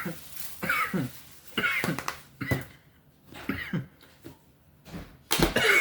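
A man coughing in a series of short, hard coughs, about five in all, the last one longer, after breathing in cayenne pepper dust.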